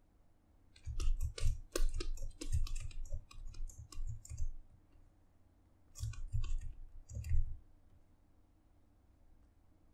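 Bursts of rapid clicking and tapping from a computer input device during digital sculpting. The first burst starts about a second in and lasts over three seconds; a shorter one follows from about six to seven and a half seconds.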